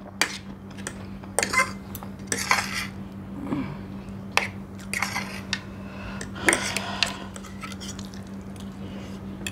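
Metal fork and knife scraping and clinking irregularly against a ceramic plate, over a steady low hum.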